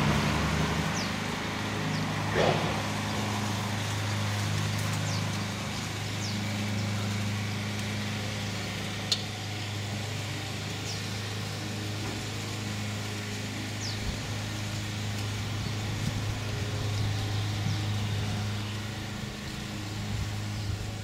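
A motor running steadily with a low hum, with a few short high chirps from birds over it and one sharp click about nine seconds in.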